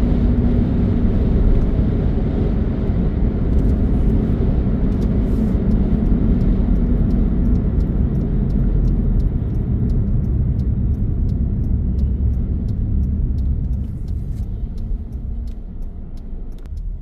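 Steady road and wind noise of a car driving, heard from inside the cabin: a low rumble that eases off somewhat near the end.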